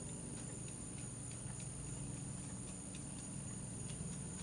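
Paintbrush dabbing on acrylic paper, stippling in foliage: a run of light, irregular taps, about three a second, over a steady background hum.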